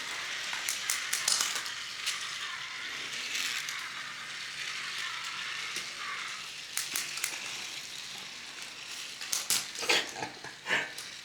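Small solar-powered walking robot toys running, clicking and rattling as their little gear motors drive their legs. The clicks come in short clusters over a steady hiss.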